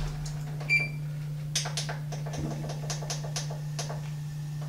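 A short electronic beep from the oven's control panel about a second in, then a scatter of light clicks, over a steady low hum: the oven timer being set.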